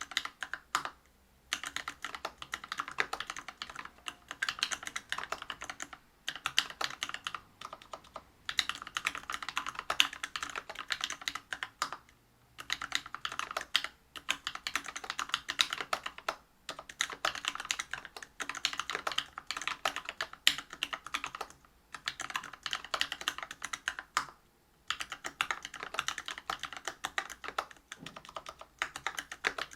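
Whale 75 mechanical keyboard with a brass plate, Bingsu POM linear switches and PBT keycaps, typed on quickly: a dense run of key clacks in bursts, broken by several short pauses.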